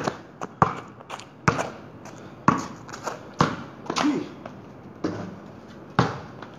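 Basketball bouncing on a concrete street as a player dribbles: sharp, short thuds about once a second, with a gap of about a second near the middle.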